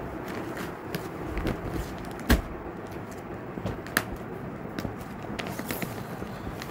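Handling noise from cloth and plastic-wrapped clothing packs: a steady low background hiss with a few sharp clicks and light rustles, the loudest click a little over two seconds in and another at about four seconds.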